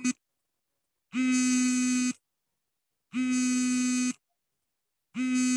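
Electronic buzzer beeping: three identical steady low-pitched beeps, each about a second long and two seconds apart. The last one starts near the end.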